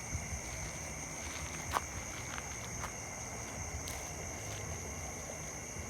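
Steady high-pitched drone of an insect chorus, two even tones holding throughout, over a low uneven rumble, with one sharp click a little under two seconds in and a few fainter knocks.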